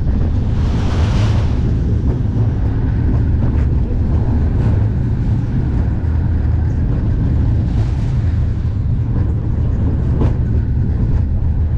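Vekoma Boomerang roller coaster train dropping from its spike and running at speed through its inversions: a steady, loud low rumble of the train on the steel track under heavy wind noise on the ride-mounted microphone, with a brighter rush of air about a second in.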